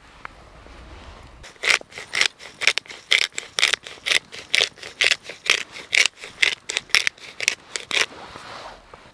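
Disposable pepper grinder twisted back and forth, its cap mill cracking whole black peppercorns in a quick run of crunching strokes, about three a second, starting a second and a half in and stopping about a second before the end.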